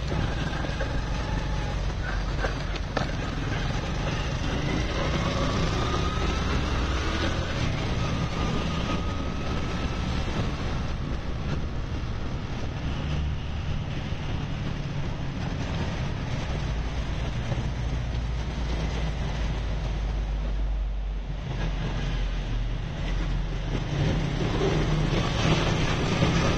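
A vehicle running along a wet road: engine and tyre noise from the ride, with wind rumbling on the microphone and the engine pitch rising a few times in the first several seconds.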